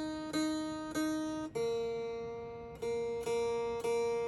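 Single strings of a vintage Silvertone hollowbody electric guitar plucked one at a time while it is tuned. One note is picked three times, then a lower string is picked about three times, each note ringing clearly. The strings are freshly fitted and still settling in.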